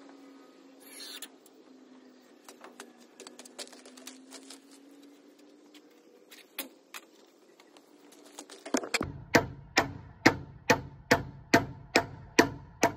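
Hammer driving nails through metal joist hangers into wood framing: a quick run of about nine ringing strikes, roughly two a second, starting about nine seconds in. Before that, faint scattered ticks over a steady low hum.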